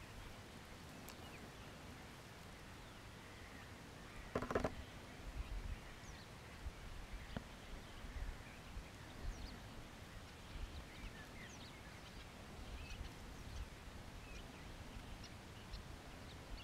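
Slavonian (horned) grebe giving one short call about four and a half seconds in, over faint scattered high chirps of other birds and a low rumble.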